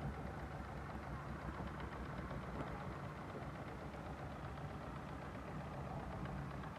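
Wooden river boat's engine idling steadily with a low, even hum.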